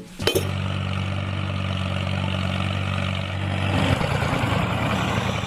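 Engine idling with a steady low hum, over a rushing noise; the hum stops about four seconds in while the rushing noise carries on.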